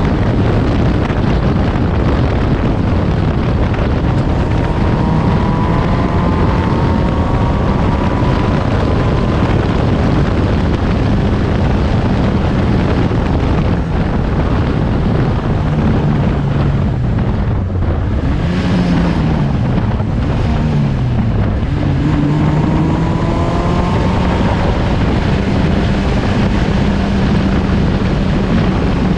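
Open-cockpit race car at speed, heard from the driver's seat: heavy wind noise on the microphone over the engine. The engine note climbs, drops in steps about two-thirds of the way through as it slows, then rises again as it accelerates.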